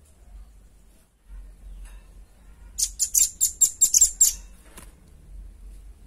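Velvet-fronted nuthatch calling: a fast run of high, sharp chit notes, about six a second for a second and a half, with one more note half a second later.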